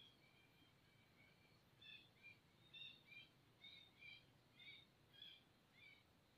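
Faint, high, short chirps of a small bird, roughly two notes a second, coming more often from about two seconds in, over a low background hiss.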